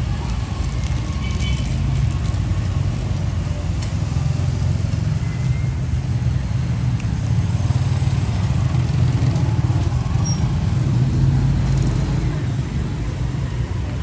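Steady low rumble of background road traffic, with a few faint light clicks.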